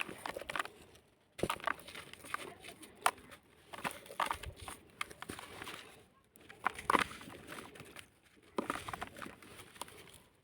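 Crumbly sand-cement chunks being crushed and broken apart: clusters of short, crunchy crackles and clicks separated by a few brief silences.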